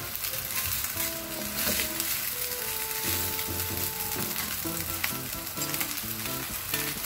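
Rice frying and sizzling in a nonstick pan over a high gas flame, stirred and tossed with a wooden spatula that scrapes through the rice.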